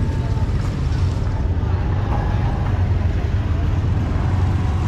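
Steady low rumble of busy street-market ambience, with faint voices in the background.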